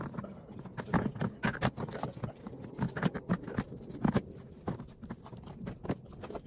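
Ribbed plastic panels of a garden storage box knocking and clattering as they are handled and fitted together: a string of irregular hollow knocks.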